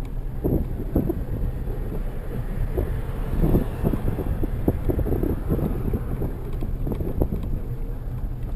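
Wind buffeting the microphone of a camera on a moving bicycle, heard as an uneven low rumble throughout.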